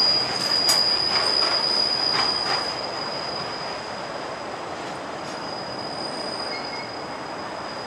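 The last container wagons of a freight train roll past, their wheels clacking over rail joints, and the rumble dies down about two and a half seconds in as the train draws away. A steady high whine runs through it.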